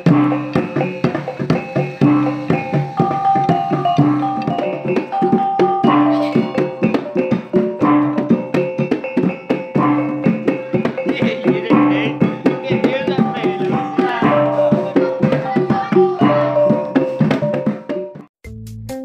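Traditional Sumatran talempong ensemble playing: wooden-bar talempong struck with sticks for the pitched melody notes, with a small hand drum and hanging gongs in a fast, steady rhythm. Near the end it cuts off suddenly and a different track with a steady bass beat starts.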